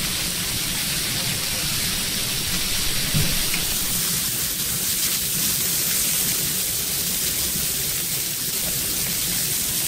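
Chicken chops sizzling steadily on a hot flat-top teppanyaki griddle, a dense hiss like rain, with a light knock about three seconds in.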